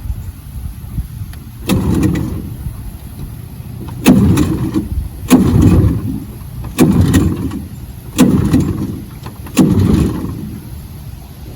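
Outboard boat motor being cranked over six times in a row, about a second and a half apart; each attempt turns it over briefly with a sharp start and fades without the engine catching. The owner blames a fuel hose that isn't getting gas to the motor.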